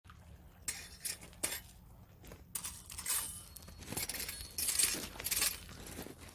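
Footsteps crunching over loose beach pebbles, the stones clinking against each other in irregular bursts.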